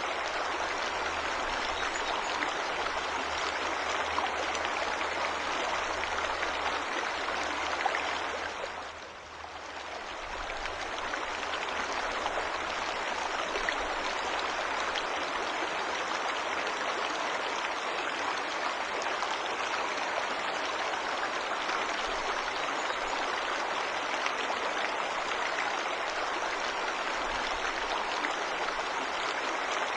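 Waterfall water rushing in a steady, even hiss. About eight seconds in it briefly fades down and swells back up within two seconds.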